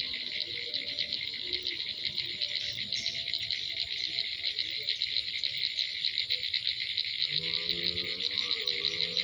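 Crickets calling in a dense evening chorus: a high, fast, even chirring with no pause. About seven seconds in, a lower pitched tone with a wavering pitch joins it.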